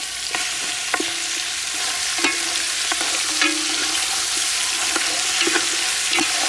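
Pieces of pork leg sizzling in hot oil in a large aluminium pot while a spatula stirs them, knocking and scraping against the pot every second or so, the pot ringing briefly after some strokes.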